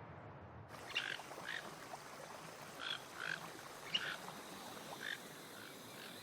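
Short animal calls in forest ambience, about eight in four seconds at an uneven pace, each a brief chirp.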